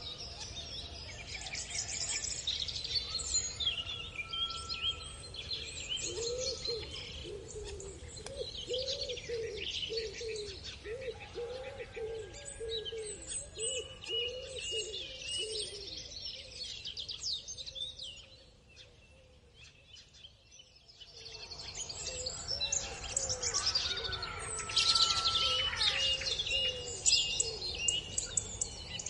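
Hens clucking in a regular run of short, low notes, over constant chirping of small birds. Around two-thirds of the way through, the sound briefly drops away, then the chirping returns.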